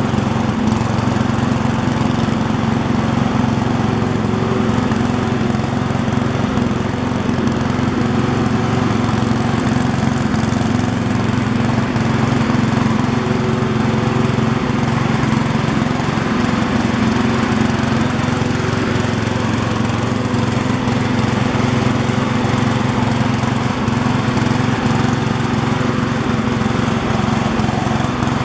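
MTD ride-on lawn tractor's engine running at a steady speed while the tractor is driven along.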